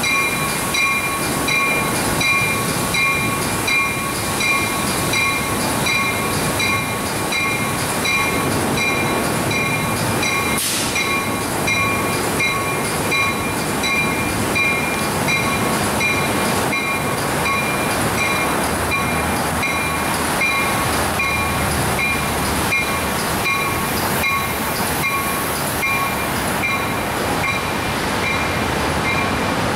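Amtrak passenger train's bell ringing steadily, about twice a second, as the push-pull train sets off from the platform. The train's running rumble is heard underneath.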